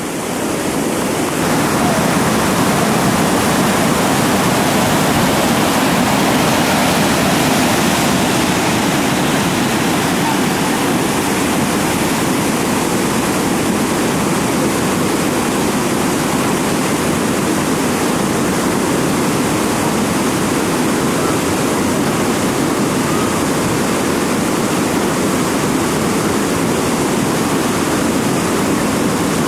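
Steady rushing of a large whitewater rapid, Bull Sluice on the Chattooga River, heard close up: a continuous wash of churning water that swells over the first second or two and then holds level.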